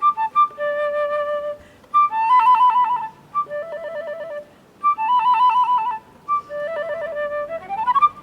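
Flute playing a classical piece inspired by birdsong: held notes alternating with rapid trills, and a quick rising run near the end.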